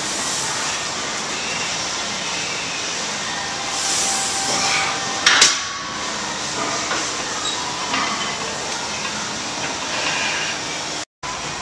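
Plate-loaded hack squat machine's sled sliding on its rails, with one loud metal clank about five seconds in.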